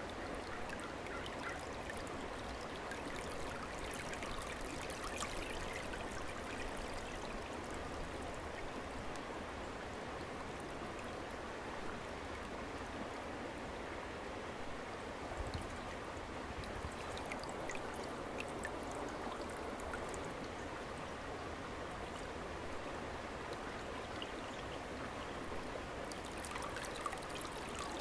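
A shallow creek flowing steadily, with a trickle of water poured from a gourd into a woven basket and draining back through the weave into the stream.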